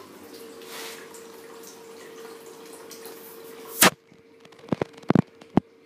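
Running tap water hissing steadily over a faint steady hum, cut off by a sharp click about four seconds in; a few light clicks follow.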